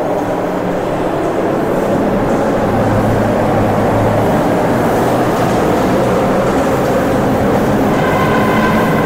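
Steady, loud rush of wind buffeting the microphone over road and tyre rumble while riding a Ghostcat F3 electric bike at speed, with a thin higher whine joining near the end.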